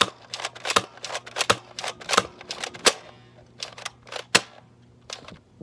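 Spring-loaded Nerf sniper blaster being cocked and fired dart after dart: a run of sharp plastic clacks and snaps, the loudest roughly every three-quarters of a second, growing sparser after about three seconds.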